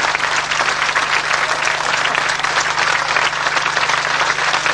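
Audience applauding steadily, many hands clapping at once, over a low steady hum.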